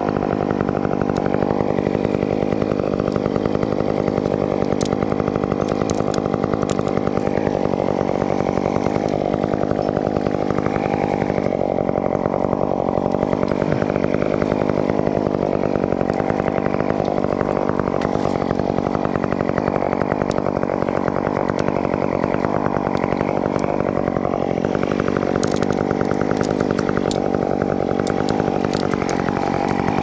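Two-stroke chainsaw running steadily, its engine note wavering slightly under load.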